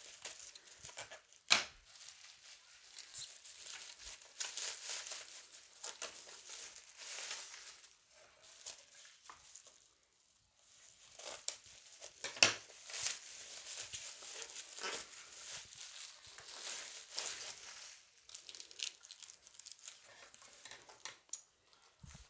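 A parcel's plastic and paper packaging being torn and crinkled open by hand, in irregular rustling spells with a couple of sharp snaps, about a second and a half in and again near the middle.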